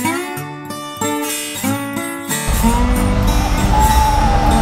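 Strummed acoustic guitar music; about two and a half seconds in it gives way abruptly to a vintage tractor engine running as the tractor drives past, with some music still heard over it.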